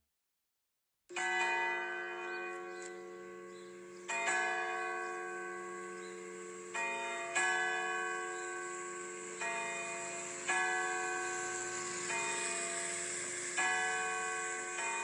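A church bell tolling, struck every one to three seconds, each stroke ringing on under the next. It starts about a second in.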